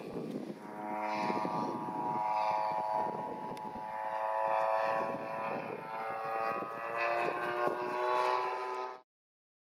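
Radio-controlled scale model Spitfire's engine running at high power as the model climbs out after takeoff and passes overhead, its pitch drifting up and down as it flies. The sound cuts off abruptly near the end.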